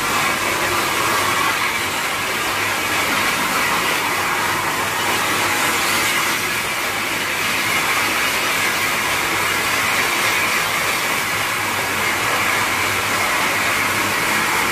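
Steam-hauled mountain toy train running: a steady, loud noise from the steam locomotive and the coaches on the track.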